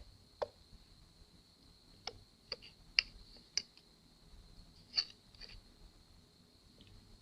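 Multimeter probe tips clicking and tapping against a laptop motherboard's components while a line is checked for a short to ground: about seven scattered small clicks, the loudest about three and five seconds in.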